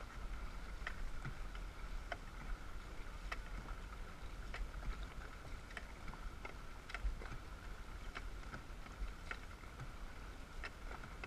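A dragon boat crew's paddles catching the water in unison, a sharp splash about every 1.2 seconds, over a low rumble of wind on the microphone.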